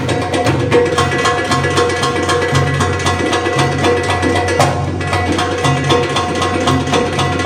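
Live Middle Eastern percussion: darbuka goblet drums and a frame drum playing a fast, dense drum-solo rhythm, with steady sustained keyboard notes beneath.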